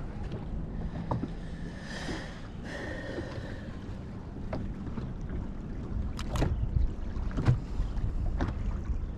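Wind rumbling on the microphone and choppy waves slapping against a boat's hull, with a few sharp knocks in the second half and a brief higher hum about two seconds in.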